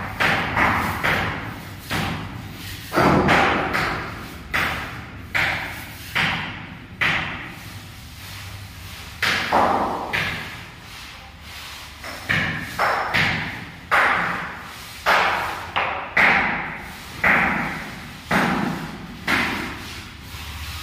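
A mason's trowel and float stroke across a freshly plastered cement floor to smooth it, about one stroke a second. Each stroke starts sharply and fades.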